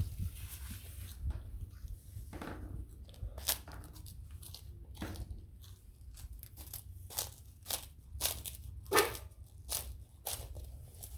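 Close handling noises: irregular short rustles and clicks, a dozen or so spread unevenly, with the loudest strokes about two and a half, three and a half, and nine seconds in, over a low steady hum.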